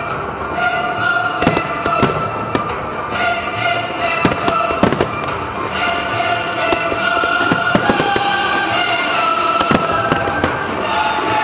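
Aerial fireworks bursting in a dense, irregular run of sharp bangs, several close together at times, over music with long held notes.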